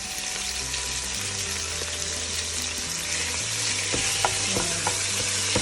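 Chicken pieces sizzling in hot olive oil in a frying pan: a steady frying hiss, with a few sharp clicks near the end.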